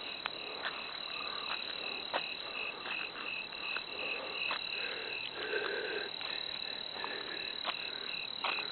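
Crickets chirping in a night chorus: one steady high trill and a pulsed chirp repeating about three times a second, with scattered sharp clicks.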